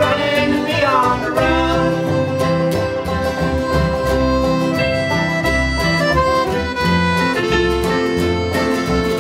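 Instrumental band music with a steady beat, sustained melody notes over a moving bass line.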